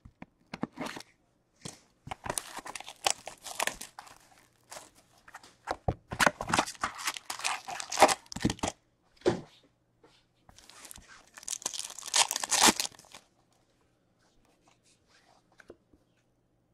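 Plastic shrink-wrap and foil trading-card pack wrappers being torn open and crinkled, in repeated bursts of tearing and rustling that stop about 13 seconds in.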